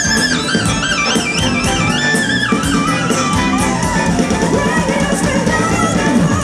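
Live band playing an instrumental break with no vocals: a high lead melody with quick trills over drums keeping a steady hi-hat beat. The lead line drops out about two and a half seconds in, leaving the band's backing.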